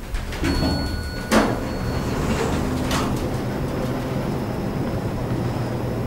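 Otis elevator car's doors at floor arrival, with a short electronic tone near the start, a sharp clack about a second and a half in and another near three seconds, over a steady low hum.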